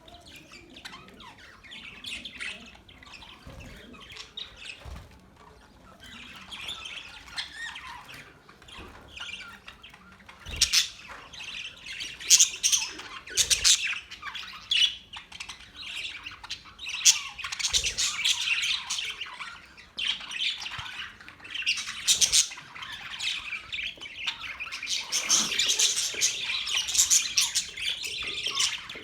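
A flock of budgerigars chirping and chattering continuously, with sharp squawks among the warbling, busiest in the second half.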